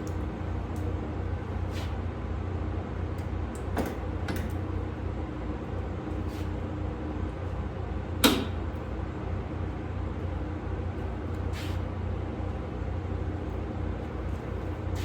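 Light clicks and knocks of sheet metal being handled and laid in place over a steady low hum; one sharp metallic knock about eight seconds in is the loudest.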